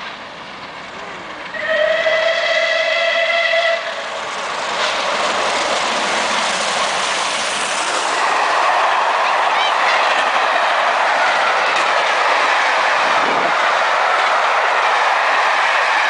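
Bulleid Battle of Britain class steam locomotive Tangmere sounds its whistle, one steady chord held for about two seconds. Its train then rushes through at speed, and the loud, steady rumble of the coaches' wheels on the rails builds and holds as they pass.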